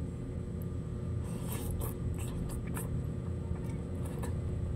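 Faint sounds of eating noodles with wooden chopsticks from a ceramic bowl: soft chewing with a few small clicks and scrapes, over a steady low hum.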